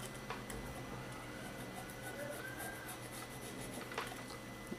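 Faint scraping of a thin file rubbed back and forth in the apex seal groove of a Mazda 13B rotary engine rotor, cleaning the groove so the seal sits evenly, with a few light metal clicks.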